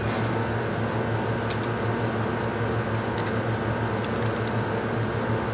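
Steady low electrical hum with a hiss, unchanging throughout, with a few faint ticks.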